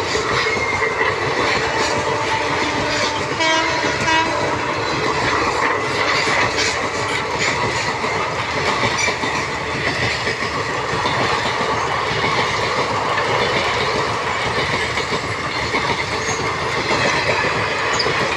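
Passenger coaches of an express train rushing past at speed, a steady loud rush with the wheels clattering over rail joints throughout. A train horn sounds briefly about three to four seconds in.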